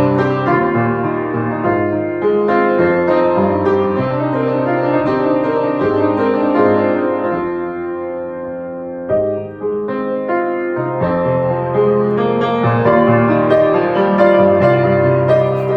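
Solo piano playing sustained chords over a deep bass line. The playing thins out and softens for a moment just past the middle, then comes back in with a fresh chord and builds again.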